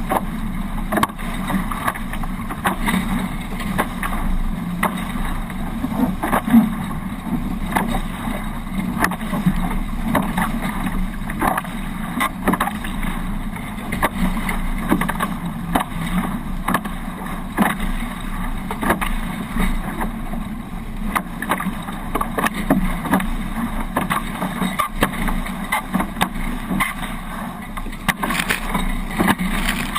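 Water rushing past and slapping against the hulls of a Hobie 18 catamaran under sail, with frequent small knocks, and wind buffeting the microphone.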